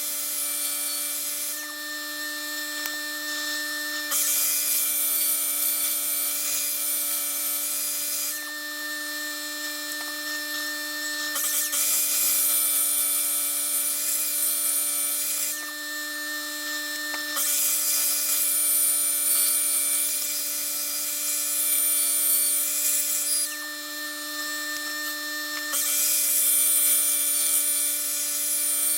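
Power grinding or sanding tool running steadily on an aluminum bronze casting. Four times, for several seconds each, the metal is pressed to it and a loud grinding hiss rises over the motor's hum.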